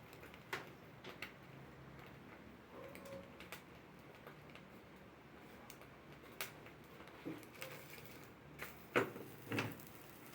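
Scattered light clicks and knocks of kitchen utensils against cookware, with two louder knocks about nine seconds in.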